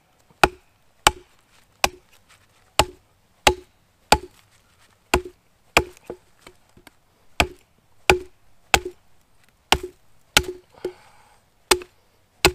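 Hatchet chopping at the end of a wooden pole to chamfer it: about sixteen sharp knocks, spaced irregularly half a second to a second apart.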